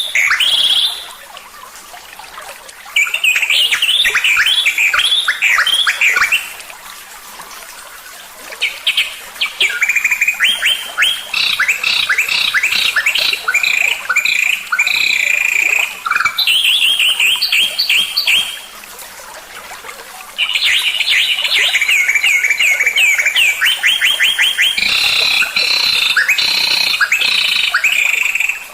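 Songbird singing in long phrases of rapid, high repeated chirps and trills, each phrase lasting several seconds, with short pauses between them.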